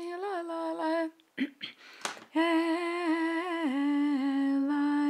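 A woman humming a slow, wordless melody in long held notes that step gently up and down in pitch. About a second in there is a short break filled with a quick breath and mouth sounds, then another long, steady note.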